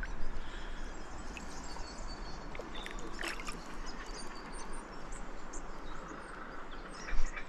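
Steady hiss of river water around a canoe, with a few faint short bird chirps and one brief sharp sound near the end.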